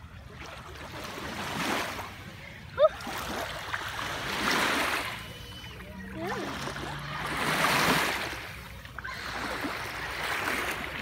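Small waves washing onto the shore, each swell of splashing coming and fading every three seconds or so, over a steady low rumble. A single sharp tap cuts through just before three seconds in.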